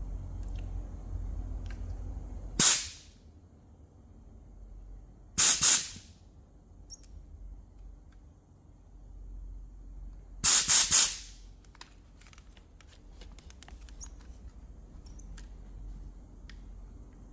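Short, sharp bursts of pressurised spray hissing. There is a single burst, then a double burst about three seconds later, then three or four quick bursts about ten seconds in. Light clicks and handling noises come in between.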